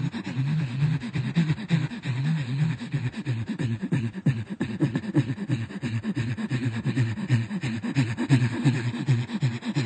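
A voice making rapid, rhythmic, low pulsing sounds, like voiced panting, about four or five a second.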